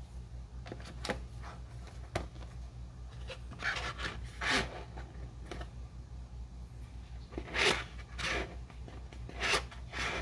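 Hands handling the drone's packaging during unboxing: a series of short rubbing and scraping sounds, the longest near the middle and toward the end, over a steady low hum.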